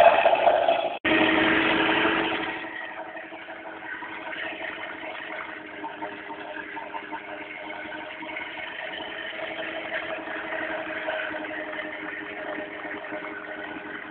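A bucket milker's vacuum unit running, its newly fitted electric motor belt-driving the vacuum pump. First a loud rushing hiss that drops out briefly about a second in and dies away by about two and a half seconds in, then a steadier, quieter running hum with a few steady tones.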